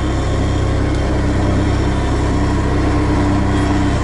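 All-terrain vehicle's engine running steadily, heard from inside the cab, with a low hum and a constant steady tone.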